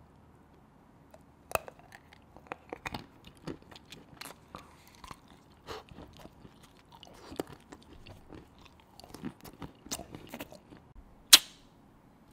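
Close-miked biting and chewing of a chocolate surprise egg: irregular crunches and cracks of the chocolate shell, with one loud, sharp crack near the end.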